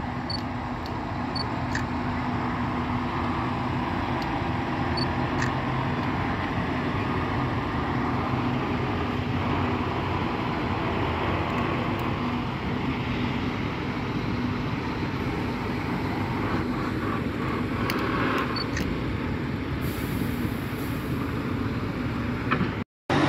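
Scania truck V8 diesel engine running steadily. The sound cuts out briefly near the end.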